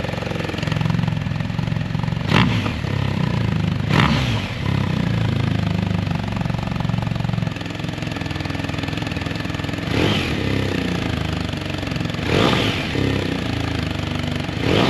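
BMW R1250GS boxer-twin engine idling through a newly fitted Jekyll and Hyde aftermarket exhaust, blipped sharply about five times.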